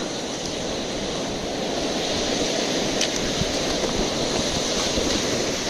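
Sea surf washing in, a steady rush of waves, with wind buffeting the microphone.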